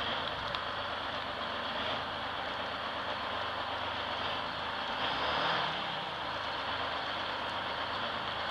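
GMC New Look transit bus's diesel engine running steadily as the bus rolls slowly, with a brief rise in level about five seconds in.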